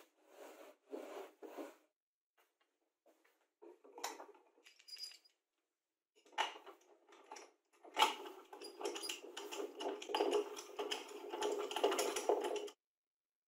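Homemade plywood lathe tailstock being handled on and slid along a plywood lathe bed: a few short wooden knocks and scrapes, then several seconds of continuous scraping and rattling that stops abruptly near the end.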